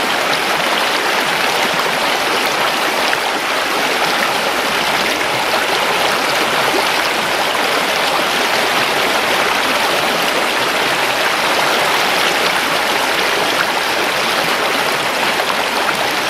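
Water of a stream rushing and splashing over rocks in a steady, unbroken flow.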